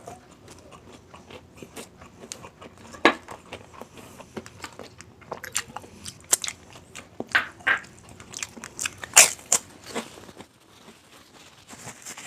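A person eating with crunchy bites and chewing: irregular crisp crackles and snaps throughout, with sharp crunches loudest about three seconds in and again around nine seconds.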